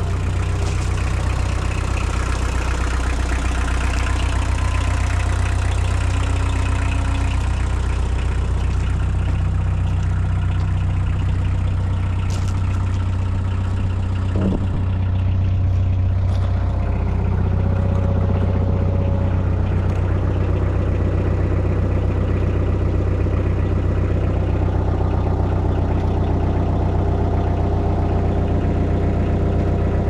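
Bobcat 743B skid steer's diesel engine running steadily at idle, holding an even pitch.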